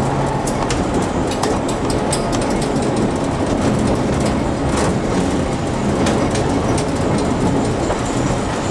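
Peter Witt streetcar rolling along the track, heard from inside the operator's cab: a steady rumble of wheels on rail with scattered clicks and knocks.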